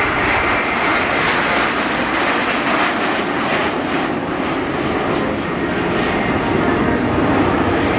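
Canadian Snowbirds' CT-114 Tutor jets, each with a single turbojet, roaring overhead as the formation passes. The roar is brightest in its first half and turns deeper in its second half.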